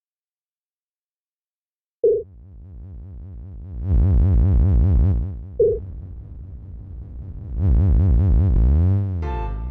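Synthesized electronic sound effects. A short beep comes about two seconds in, then a loud swelling low electronic whoosh, a second beep, and another swell. Music begins near the end.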